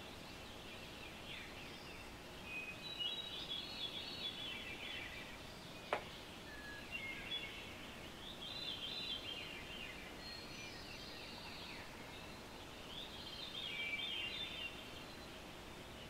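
A songbird singing a jumbled phrase of quick high notes, repeated about every four seconds over faint background hiss. A single sharp click about six seconds in.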